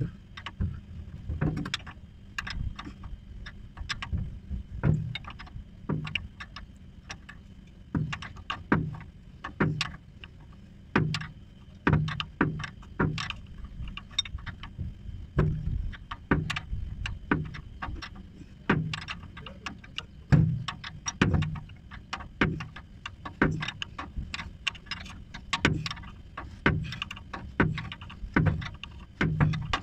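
Irregular metallic clicks and knocks of a hand wrench turning a bolt on a truck's air-assisted brake booster, about one a second and often in pairs.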